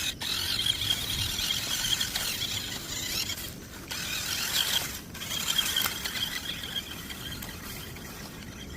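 RC toy car's small electric motor and gears whirring with a steady high-pitched whine, cutting out briefly twice.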